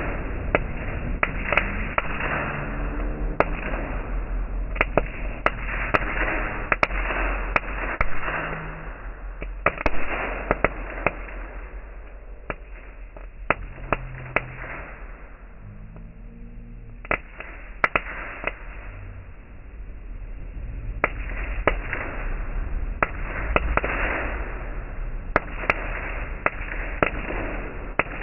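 Small ground firework burning: a steady hiss of spitting sparks with many sharp, irregular crackles and pops. It dies down about halfway through, then picks up again.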